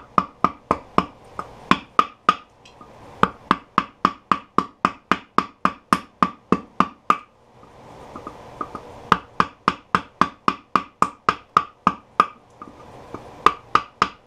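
A wooden mallet strikes the wooden handle of a chisel in quick runs of sharp knocks, about three or four a second, with short pauses between runs. The chisel is chopping away the waste wood left on the base of a black walnut bowl.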